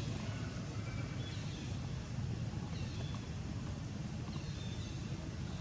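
Outdoor background noise: a steady low rumble, with a few faint short high chirps scattered through it.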